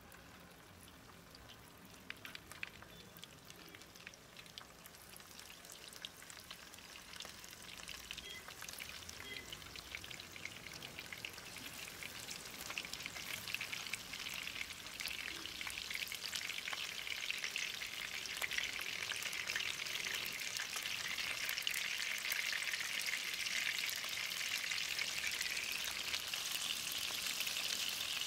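Small masala-marinated fish shallow-frying in hot oil in a pan, a dense sizzle full of fine crackles that grows steadily louder.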